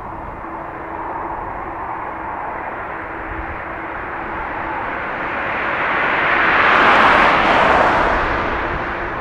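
Boeing 747-400's four jet engines at takeoff thrust during the takeoff roll, a steady roar that swells to its loudest about seven seconds in as the jet passes, then eases off.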